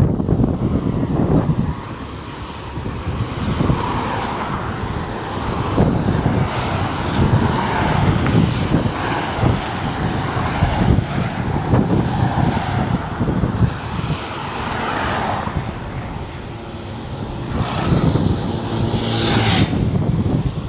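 Wind buffeting the microphone over road traffic on a highway, with a louder whoosh of a vehicle passing close near the end.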